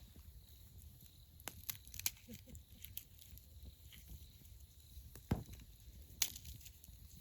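Sporadic light knocks and clicks of objects being handled, with a duller knock about five seconds in and a sharp click a second later.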